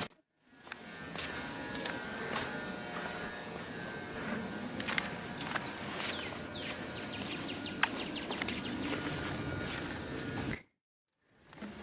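Steady, high-pitched buzzing of insects in woodland, with a few light clicks. It cuts off abruptly near the end.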